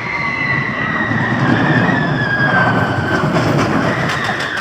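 Revolution's steel roller coaster train rolling past on its track: a rumble that builds, with a high steady wheel whine that slides slightly lower, loudest in the middle of the pass and easing toward the end.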